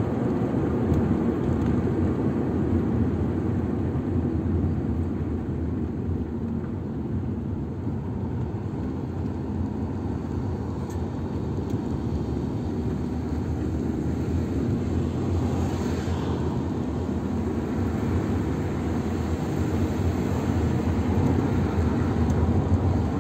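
Steady low engine and tyre noise of a moving car, heard inside its cabin.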